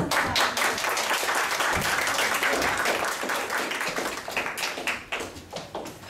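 Audience applauding: dense clapping from the start, thinning out to scattered claps over the last couple of seconds.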